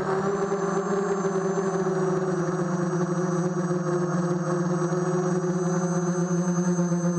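Micro quadcopter's 2000 kV brushless motors spinning 5030 Gemfan propellers in flight, heard from on board as a steady hum whose pitch shifts slightly with throttle.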